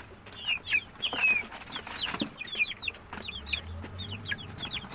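A brood of Jersey Giant chicks peeping: many quick, high chirps overlapping, each falling in pitch.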